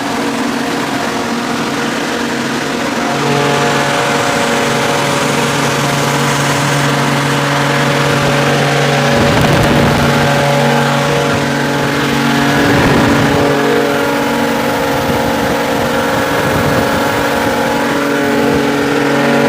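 Atlas Copco GA 165 oil-injected rotary screw air compressor running with a loud, steady hum of several tones. About three seconds in, the hum steps up in pitch and gets a little louder.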